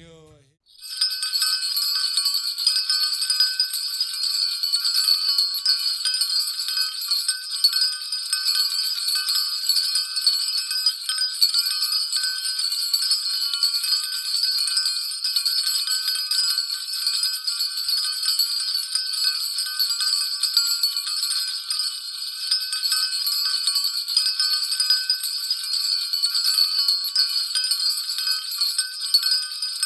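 Many bells jangling together in a dense, unbroken clatter, starting about a second in.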